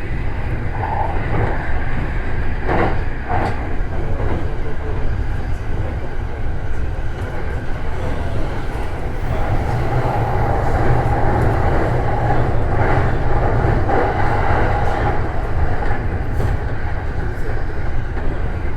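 Electric commuter train running along the line, heard inside the leading car: a steady rumble with a few sharp clicks of wheels over rail joints about three seconds in, and a steady whine for several seconds midway.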